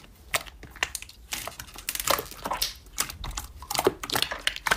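Hands squeezing and pressing green slime, giving a run of irregular small clicks and crackles.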